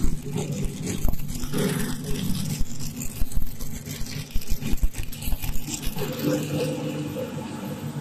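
A hand rummaging through a bin of dry, light extruded corn puffs, giving an irregular rustling scrape, over the steady hum of machinery running.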